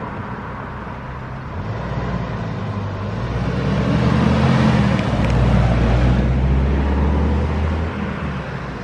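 A motor vehicle's engine with road and wind rush. The engine grows louder and shifts in pitch from about three seconds in, then eases off near the end.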